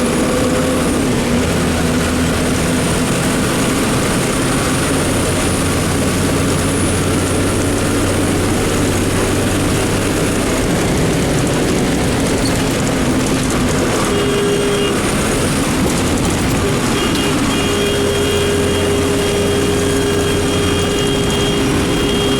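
Public bus engine running as the bus drives through heavy rain: a steady low engine hum under a dense hiss of rain and road noise. About two-thirds of the way in, a steady higher tone joins and holds, with a few short breaks.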